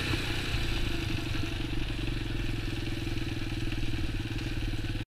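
X19 super pocket bike's small engine running at low speed with an even, steady beat of firing strokes. The sound cuts off abruptly just before the end.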